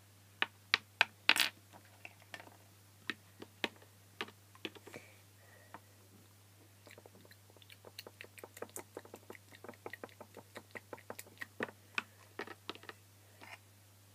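Small plastic toys clicking and tapping as they are handled and set down: a few sharp clicks in the first second and a half, then a long run of quicker, lighter taps.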